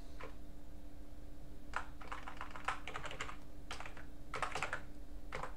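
Computer keyboard typing: keystrokes in short irregular clusters with pauses between, over a faint steady hum.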